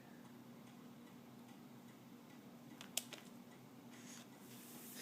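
Near silence: a faint steady hum with scattered faint ticks, and one sharp click about three seconds in.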